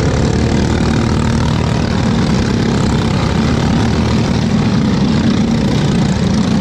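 Several Briggs & Stratton LO206 four-stroke kart engines running as a line of karts drives past close by, a steady, dense engine drone.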